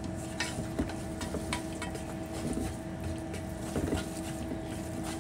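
Long cooking chopsticks stirring spring roll filling in a nonstick frying pan, with occasional light taps and scrapes against the pan. A steady low hum runs underneath.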